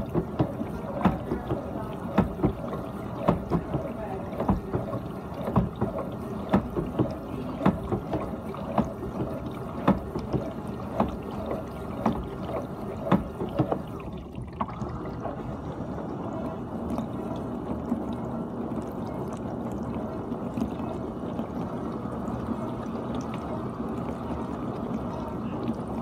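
GE dishwasher mid-cycle, water spraying and sloshing inside the tub with frequent irregular splashes against the racks and door. About halfway through, the spray briefly drops and then resumes as a smoother, steadier wash.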